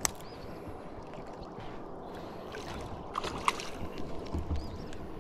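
A hooked sheepshead (freshwater drum) splashing and thrashing at the surface close to the bank as it is played in, with water sloshing and a few sharp ticks. The splashing grows somewhat louder in the second half.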